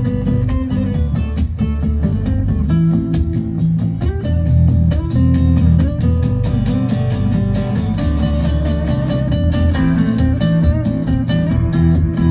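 Guitar music played back over hi-fi loudspeakers, steady and loud with plucked notes over a strong bass line: a demonstration track on three-way floor-standing speakers.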